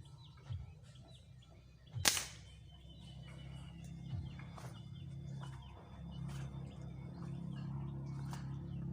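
A single sharp crack about two seconds in, the loudest sound here, typical of the airgun firing a fishing dart. Faint bird chirps run under it, and a low steady hum comes in about a second later.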